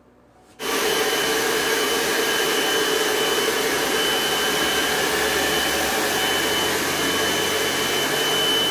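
Handheld hair dryer blowing steadily while a stylist blow-dries a woman's hair, a steady high whine over the rush of air. It starts suddenly about half a second in.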